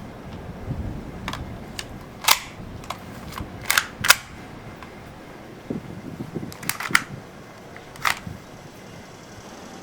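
A few sharp clicks and snaps at irregular intervals over a low background hiss, the strongest two close together about four seconds in.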